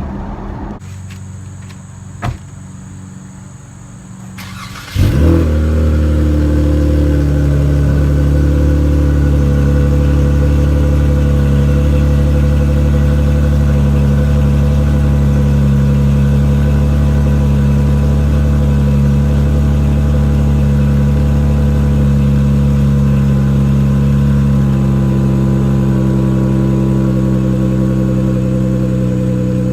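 A 2018 Dodge Challenger GT's 3.6-litre V6, breathing through a Flowmaster American Thunder cat-back exhaust, cold-starts about five seconds in. It flares briefly and then settles into a steady, deep fast idle. A single click comes a few seconds before the start.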